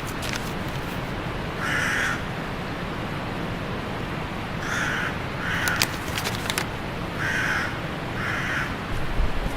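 Five short, harsh bird calls, spaced irregularly, over a steady background hiss, with a few sharp clicks about six seconds in.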